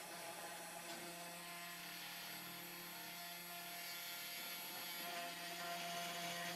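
Sainsmart 3018-PROVer desktop CNC router's spindle motor running as it carves a wooden log slice. The machine gives a steady hum, with the pitch of its tones shifting every couple of seconds as the cutting moves change.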